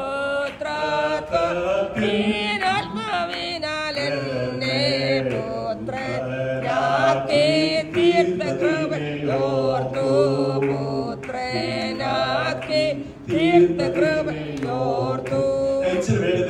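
Singing of a Malayalam Christian worship song, a slow chant-like praise chorus with long held notes.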